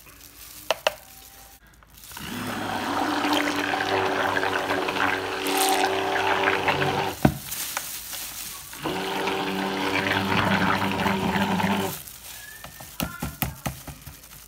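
Stick (immersion) blender running in two bursts of about five and three seconds, mixing titanium dioxide into liquid soap batter, with a steady motor whir. A few light clicks come before the first burst and after the second.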